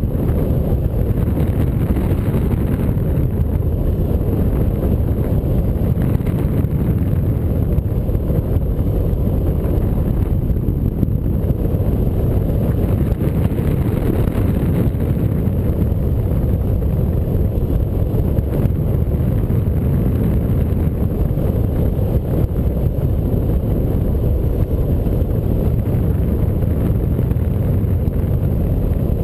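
Wind rushing over the microphone of a camera mounted on a hang glider's wing in flight: a steady, loud, low rumble of airflow noise.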